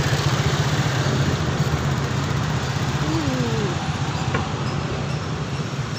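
Street traffic close by: motor scooters and cars going past with their engines running, a steady low pulsing drone, and one engine dropping in pitch as it passes about three seconds in.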